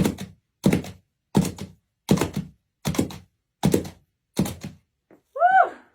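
A steady run of thuds, about one every three-quarters of a second, each a quick double or triple knock. Near the end a short squeak-like tone rises and falls in pitch.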